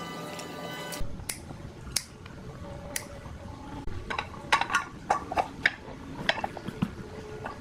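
Small metal parts and tools clinking and tapping against each other and a hard work surface, with a cluster of quick clinks in the second half.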